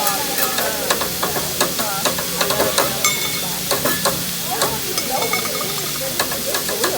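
Food sizzling on a hibachi griddle, a steady hiss, with many sharp metallic clicks and clacks from the chef's spatulas working on the hot plate.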